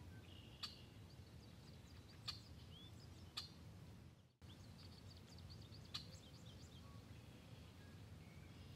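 Faint songbirds chirping in short trills over a quiet outdoor background, with a few faint sharp clicks; the sound drops out completely for a moment a little over four seconds in.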